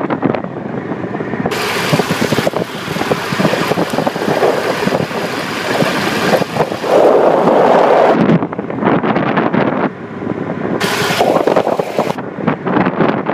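Wind buffeting the microphone of a cruiser motorcycle on the move, over the bike's engine and road noise, surging and easing unevenly.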